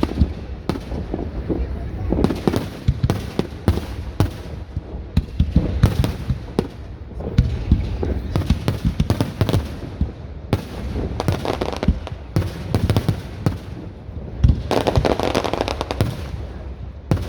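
Fireworks display: a rapid, continuous run of booming shell bursts and sharp bangs. About fifteen seconds in there is a dense stretch of crackling.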